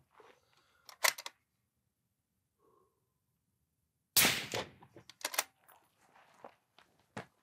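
One shot from a suppressed precision rifle about four seconds in, the loudest sound, with a short fading tail. A quick cluster of sharp clicks comes about a second in, and more clicks follow about a second after the shot.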